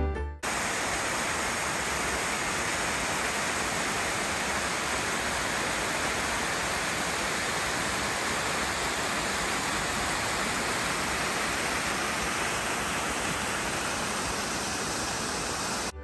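Small waterfall rushing steadily down a rocky gully, an even, unbroken roar of falling water.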